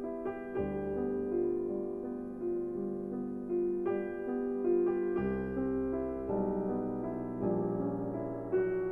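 Background piano music: a slow, gentle melody of sustained notes with chords, no other sound standing out.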